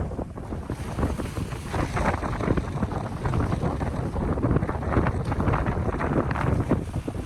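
Wind buffeting the microphone in uneven gusts, a dense low rumble that swells and dips.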